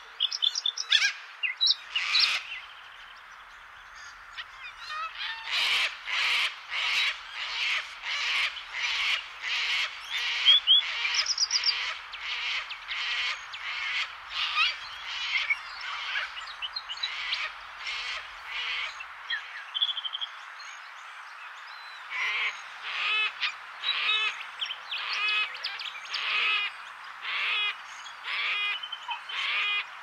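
Sulphur-crested cockatoos calling harshly over and over, about two calls a second, after a short lull a few seconds in. A few thin, higher chirps are mixed in.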